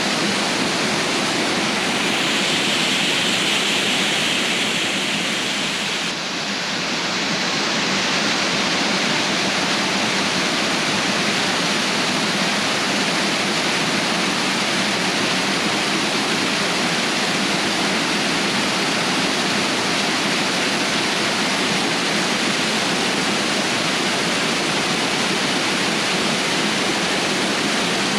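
Steady rush of a waterfall and creek running high after heavy rain, with a brief dip about six seconds in.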